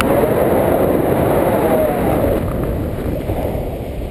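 Wind rushing over an action camera's microphone during a tandem paraglider flight: heavy, steady buffeting noise, dipping a little in the second half.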